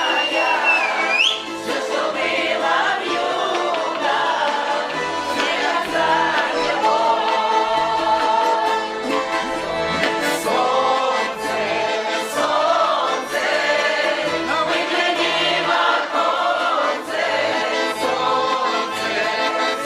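Music with a choir singing, several voices in held, moving melodic lines.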